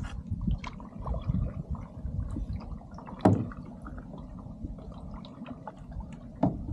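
Kayak paddle strokes dipping and splashing, with water sloshing against the hull over a low rumble. Two sharper splashes come about three seconds in and just before the end.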